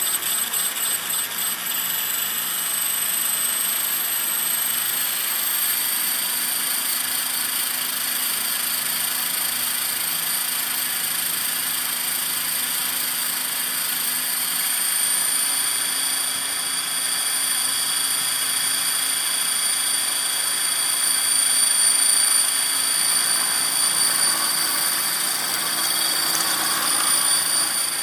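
Electric Align T-Rex 500 ESP RC helicopter running, its motor and gears making a steady high whine that climbs a little in pitch over the first few seconds and then holds. The owner calls it bad vibration and suspects a throttle/ESC or tail problem.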